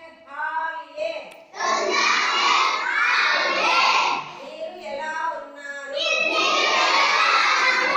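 A class of children reciting Dogri phrases in chorus after a teacher: a single voice says a short phrase, then many children's voices repeat it loudly in unison, twice.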